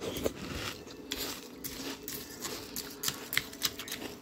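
Crunchy Magic Fruity Pebbles cereal being chewed: a string of irregular sharp crunches and clicks.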